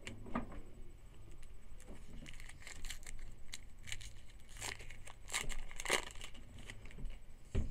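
A trading-card pack wrapper being torn open and crinkled, with a run of papery crackles and clicks that is busiest in the middle.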